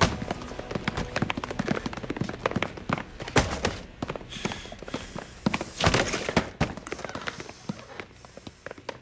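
Boot footsteps of several men rushing in across a hard floor, a quick irregular clatter, with louder thuds about three and a half and six seconds in.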